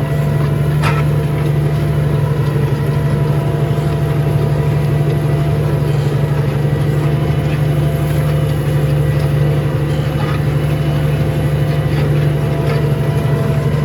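Tractor engine running steadily under load while pulling a plough through the ground in a higher gear, a constant low drone with a faint steady whine above it.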